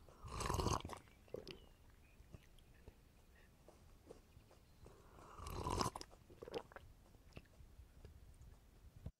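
Close-miked mouth sounds of a person drinking a watermelon shake from a glass: a loud sip about half a second in, another loud slurping mouth sound near six seconds, and small wet mouth clicks and swallows in between.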